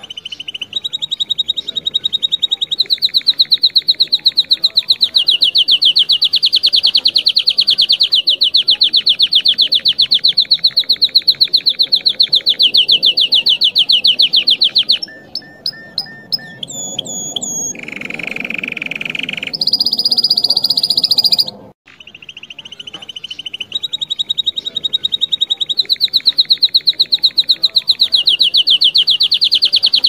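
Domestic canary singing: long, very fast rolling trills held for several seconds at a time, shifting up and down in pitch. About halfway through, the trills give way to a few separate chirps and a short harsh buzzing note before they resume.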